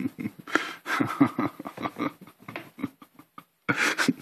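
A hand patting and rubbing a sleeping pug's fur, with short, irregular soft sounds, a brief quiet spell, and a louder burst near the end.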